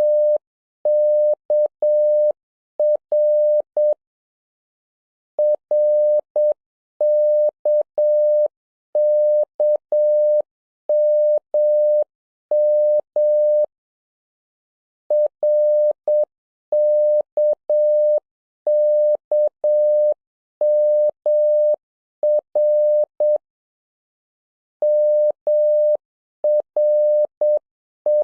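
Morse code practice tone: a single mid-pitched tone keyed on and off into dots and dashes, with a faint click at each start and stop and longer pauses between groups of characters.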